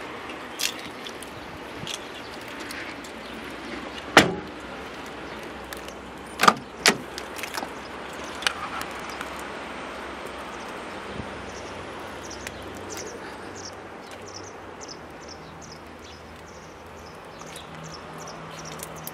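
Car door handled and opened: a few sharp latch clicks and knocks, the loudest about four seconds in, then a pair a couple of seconds later. A run of faint high chirps, about two a second, follows in the second half.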